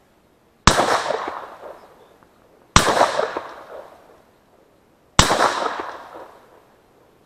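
Three shotgun shots about two seconds apart, each a sharp report followed by an echo that dies away over about a second and a half.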